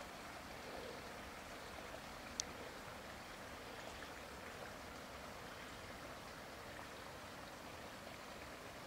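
Steady rushing noise, even and unchanging, with one sharp click about two and a half seconds in.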